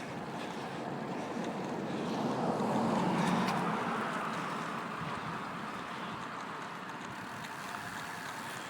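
A car coming up from behind and passing a bicycle. Its road noise swells to a peak about three seconds in, then fades, over wind noise on the microphone.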